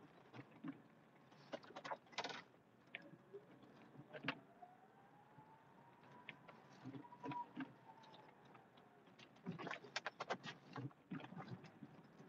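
One-ton pickup plowing snow with a Western WideOut XL plow, heard from inside the cab. It is quiet, with scattered clusters of clicks and rattles and a faint whine that rises and then falls in the middle.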